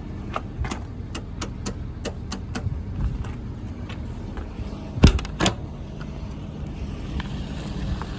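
Ford 6.7 Power Stroke diesel idling steadily, with a run of footsteps over the first few seconds and two sharp knocks about five seconds in.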